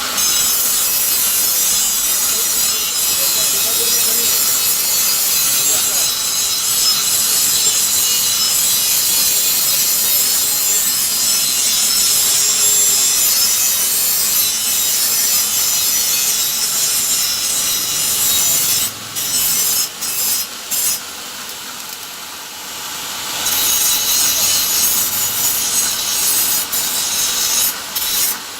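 Steady, loud abrasive rasping from a workshop tool scraping or grinding a workpiece. It stops and starts briefly about two-thirds of the way through, then runs on again near the end.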